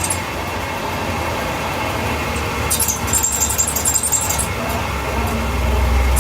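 Drivetrain and road rumble from under a 2012 BMW 328i (E93), with a high squeaking from the rear for about a second and a half, roughly three seconds in; the squeak comes only under acceleration at low revs, and the owner suspects the differential or its dust cap rubbing on it. The low rumble grows louder near the end.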